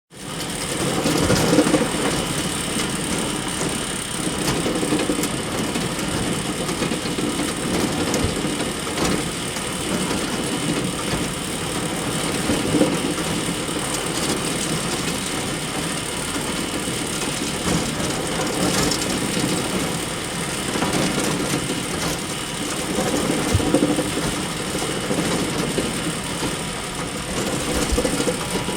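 Bale elevator running steadily, a continuous mechanical chain-conveyor clatter with occasional sharper knocks. It fades in at the start.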